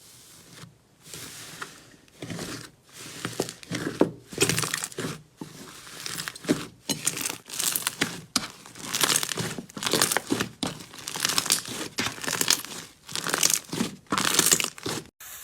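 Slime being squeezed and pressed by hand, giving an irregular run of crinkly, crackling bursts, several a second.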